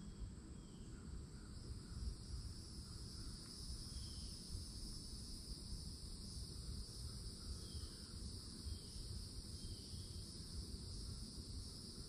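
Cicadas droning in a continuous high-pitched chorus that grows fuller about a second in. A few faint short chirps of birds are heard above a low rumbling noise.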